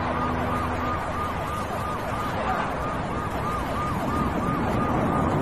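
Emergency vehicle siren in fast yelp mode, about three rising-and-falling sweeps a second, over steady city street noise.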